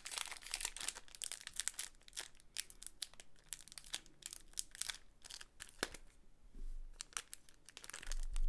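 Foil wrapper of a 1997 Bowman's Best basketball card pack crinkling and crackling in the hands as the pack is opened and its cards are worked loose. Quick irregular crackles, with a short lull about six seconds in.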